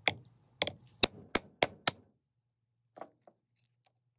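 Mallet striking the steel punch of a Pepe disc cutter, six sharp blows in about two seconds, punching a 1-inch disc out of sheet metal. Two lighter knocks follow about three seconds in.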